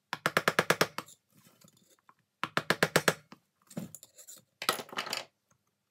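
Two quick runs of sharp metal taps on a dismantled three-jaw lathe chuck, about seven strokes in under a second each, then a few scraping knocks. The part being worked loose is stuck and is not coming free.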